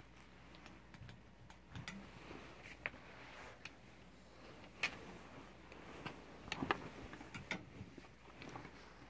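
Plastic clothes hangers clicking on a wire closet rod and jackets rustling as they are pushed aside along the rail: irregular faint clicks, a few sharper ones in the second half.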